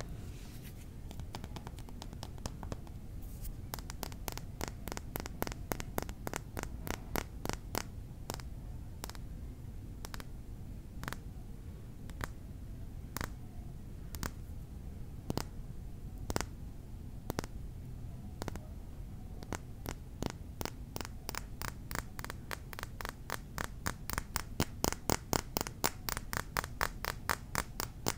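Tapping on small mini-bar bottles: separate sharp taps at first, growing into quick, rapid runs of taps near the end, over a low steady background hum.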